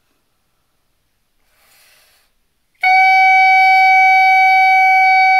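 Clarinet mouthpiece with reed and barrel, no body attached, blown as a loud, steady, shrill high tone near F sharp. The tone starts cleanly about three seconds in, after a faint breath in, and holds the same pitch without wavering.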